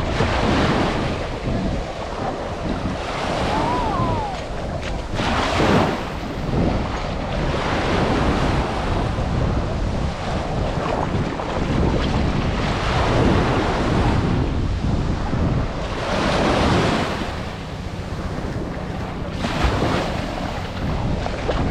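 Ocean surf washing onto a beach, with wind buffeting the microphone in a low rumble; the surf swells louder three times.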